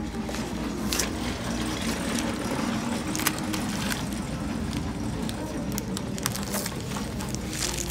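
Steady store room noise, a low hum with a faint murmur of voices, with a few light clicks and rustles from the plastic mailer package being handled on the counter.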